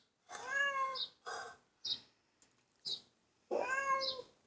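Domestic cat meowing: two long meows about three seconds apart, with shorter, quieter sounds between them.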